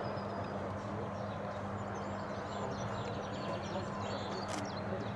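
Steady outdoor background noise with a low hum, and faint birdsong high above it from about a second and a half in; a single click near the end.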